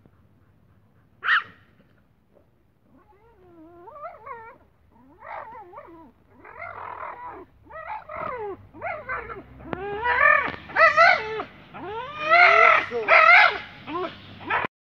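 Pit bull whining and crying in a run of short, pitched cries that bend up and down, growing louder and more frequent. It cuts off abruptly near the end.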